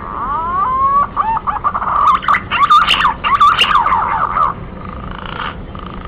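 Male green pigeon (punai) singing: a string of gliding, wavering whistles that swells into a louder warbling run about two seconds in, breaks off, and ends in a few faint notes.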